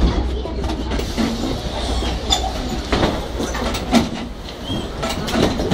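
Ride noise inside a city bus: a steady low engine rumble with frequent rattles and knocks from the body and fittings, the rumble easing after about two seconds.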